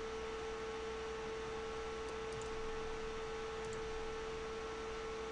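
Steady electrical hum holding one even mid-pitched tone over a faint hiss.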